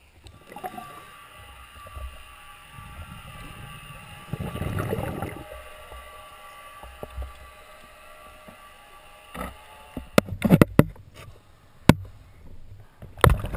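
Muffled water sounds picked up by a camera held at and under the water surface: sloshing and gurgling, with a louder rush about four seconds in. In the last few seconds come several sharp knocks and splashes.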